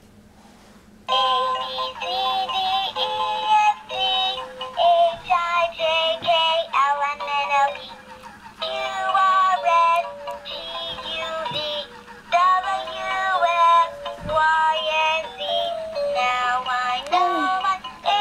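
Pink plush alphabet elephant toy playing a sung children's song with a backing tune through its small built-in speaker, starting about a second in. It sounds thin and tinny, with almost nothing in the bass.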